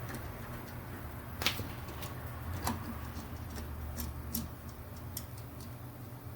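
Irregular light clicks and taps of small parts being handled, the sharpest about one and a half seconds and nearly three seconds in, over a steady low hum.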